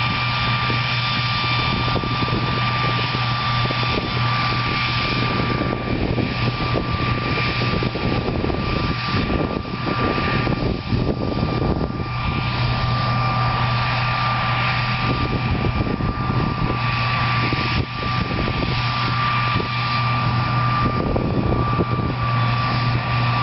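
Cotton picker running steadily, a constant deep engine hum under a high, even whine and a rushing noise.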